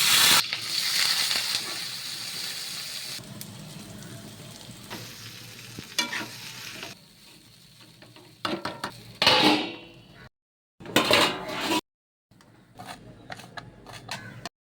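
Food frying in hot oil in a pan while it is stirred with a spoon or spatula: a loud sizzle that bursts in at the start and dies down over about three seconds, then quieter frying with several separate scrapes of the spoon against the pan.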